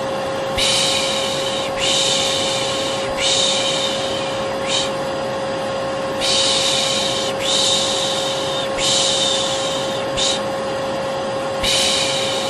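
Vacuum cleaner running steadily with a constant motor hum, overlaid by a person's rhythmic 'shh' shushing, about eight shushes each lasting about a second. Together they make a white-noise lullaby for soothing a baby to sleep.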